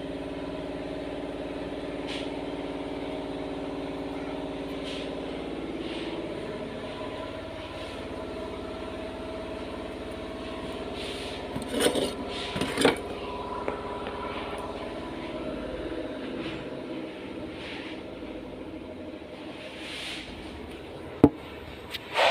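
A steady mechanical hum that grows weaker after about seven seconds, with two loud knocks around the middle and a sharp click near the end.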